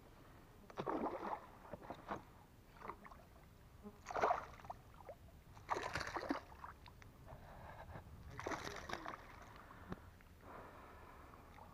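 A hooked fish thrashing at the water's surface beside a kayak, splashing in four short bursts a couple of seconds apart.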